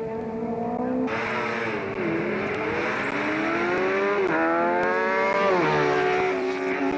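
Competition car engine revving hard: its pitch climbs and falls back sharply twice, at gear changes, the first about four seconds in and the second a second or so later.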